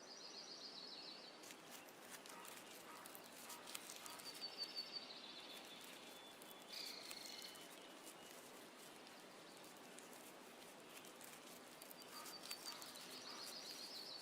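Faint forest ambience with several short, high trilled bird calls coming and going over a soft hiss.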